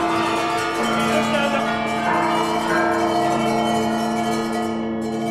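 Theatre orchestra playing a short instrumental passage of long held chords after a sung verse.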